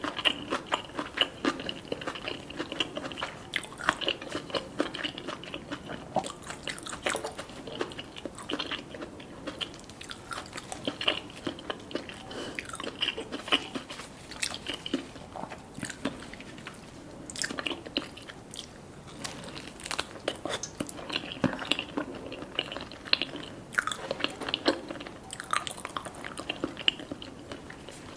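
Close-miked eating: a person biting, crunching and chewing food, with many short crisp crunches scattered irregularly between softer wet chewing.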